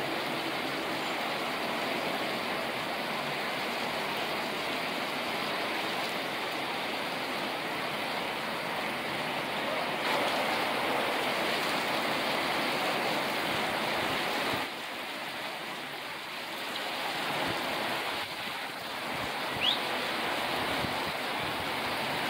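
Steady rain falling, an even hiss that eases a little about fifteen seconds in. Near the end comes one brief, high rising squeak.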